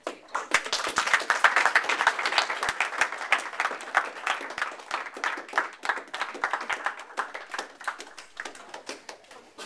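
A small classroom audience clapping. It starts all at once, is strongest over the first few seconds, and thins out toward the end.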